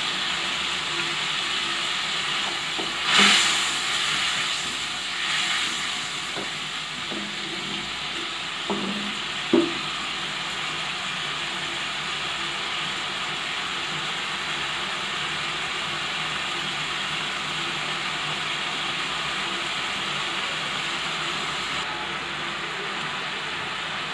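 Mustard-paste gravy sizzling and bubbling in a non-stick kadai over a gas burner, a steady hiss. There are louder spluttering bursts about three and five seconds in, and two short knocks around ten seconds.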